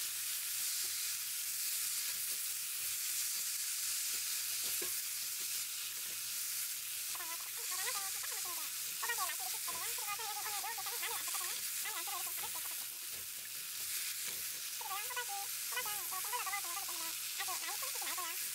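Sliced Korean zucchini, onion and green onion sizzling as they are stir-fried over high heat in a nonstick wok, driving off moisture, with a silicone spatula stirring and scraping through them. Faint wavering pitched sounds come in over the sizzle from about seven seconds in.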